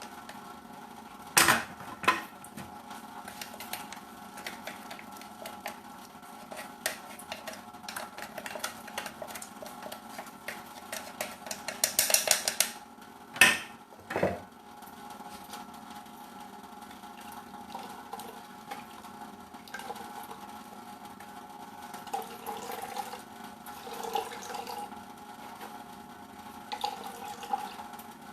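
Knocks and clatter of kitchen utensils against a basin while grated turmeric is strained through a sieve, with a few sharp loud knocks and a busier run of clattering about halfway through.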